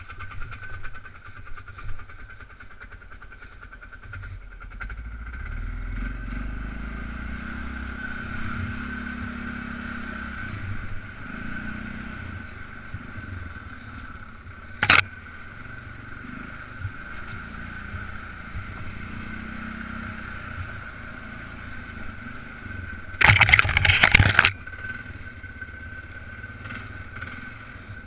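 Polaris Sportsman 500 ATV's single-cylinder engine running while riding, its low note rising and falling, with a steady high whine over it. About halfway through there is one sharp crack, and a few seconds before the end a loud rough rushing noise lasts about a second.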